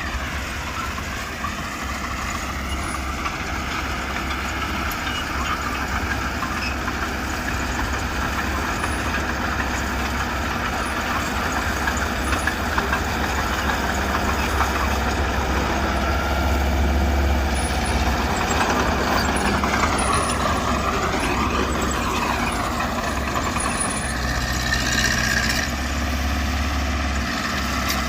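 Diesel engine of a crawler bulldozer working steadily, with a high whine that dips and swings in pitch about two-thirds of the way through.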